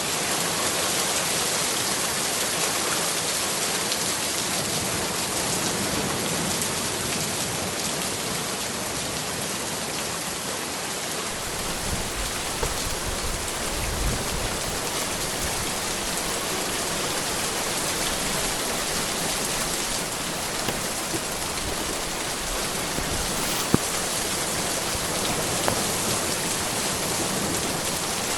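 Heavy rain falling steadily, a dense even hiss, growing fuller and deeper from about eleven seconds in, with an occasional sharp tap of a drop.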